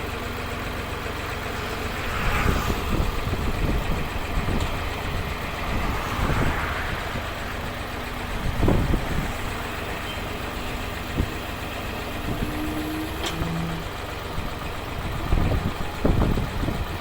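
An engine idling steadily, with a few louder thuds and clatters at intervals.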